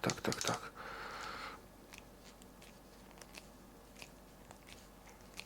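Small workbench handling noises: a brief scratchy rub lasting about a second, followed by scattered faint clicks and ticks of small metal tools being picked up and set down.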